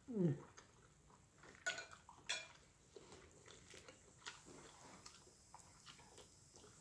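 A short falling "mm" of enjoyment. Then a metal fork clinks twice against a ceramic plate as it is set down, about two seconds in. Small faint clicks and crackles follow as a fried egg roll is handled and bitten.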